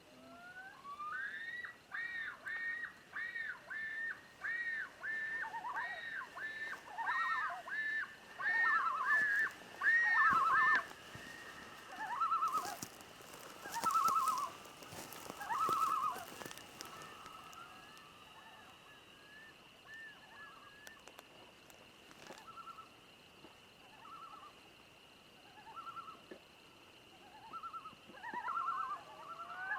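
An animal calling in a long series of short calls, about two a second, each rising and falling in pitch. The calls fade out about halfway through and pick up again near the end, over a faint steady high tone.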